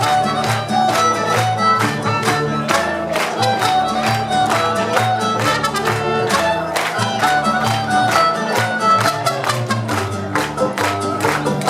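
Mariachi band playing: violins carry the melody over rhythmic guitar strumming and a steady low bass line.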